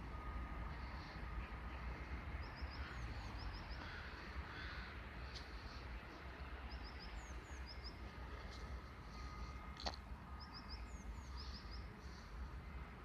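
Outdoor ambience with birds calling: short groups of high chirps repeat every few seconds over a low steady rumble. There is a single sharp click about ten seconds in.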